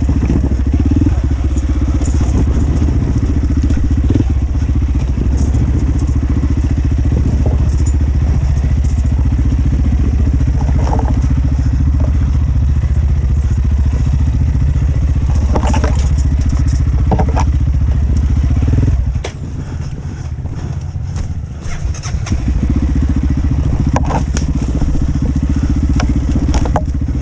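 Dirt bike engine running under throttle on a rough trail, a steady low drone. About two-thirds of the way through it drops off for a few seconds, then picks up again, with scattered knocks and clatter over it.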